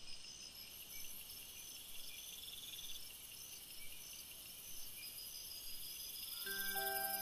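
A night chorus of crickets and other insects chirping steadily at a high pitch. Soft chiming music starts near the end.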